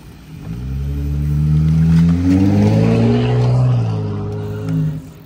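A motor vehicle passing close by on the road. Its engine tone swells up over a couple of seconds, dips in pitch as it goes past, and drops away sharply near the end.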